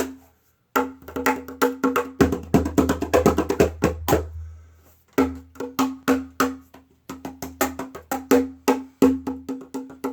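Meinl Turbo Slaptop cajon played with the hands in a rhythmic groove: sharp slaps on its top mixed with deep bass strokes. There is a short break about half a second in and a lull around four to five seconds in.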